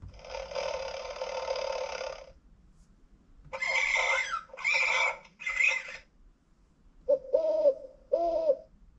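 Animal sound effects played from a LeapFrog 100 Animals electronic book's speaker, one after another with pauses between. First a hissing noise of about two seconds, then three short bird calls, then near the end two short hooting calls that rise and fall.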